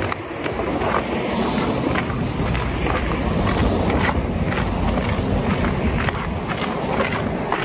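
Footsteps of a person walking, about two steps a second, over a steady low rumble.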